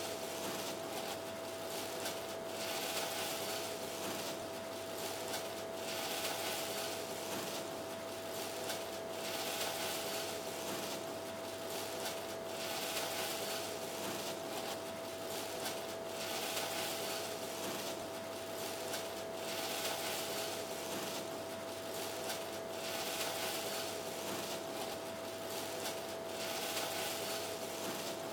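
Plastic-gloved hands rustling as they press breadcrumbs onto squid rings in a bowl, in soft irregular swishes every second or two, over a steady faint hum.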